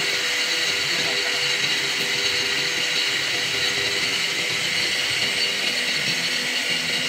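CNC router spindle driving an aggregate-head circular saw blade at full speed, a steady high whine with several held tones, the blade running free before it meets the panel.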